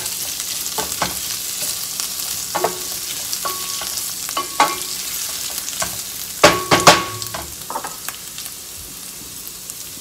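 Rosemary leaves and lemon zest sizzling gently in olive oil in a stainless steel pan, stirred with a wooden spoon that knocks and scrapes against the pan so that it rings briefly. The loudest knocks come a little past the middle. The stirring stops near the end while the sizzle carries on.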